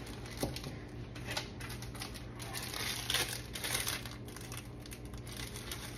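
Clear plastic treat bags crinkling and rustling as they are handled, with sharper crackles now and then.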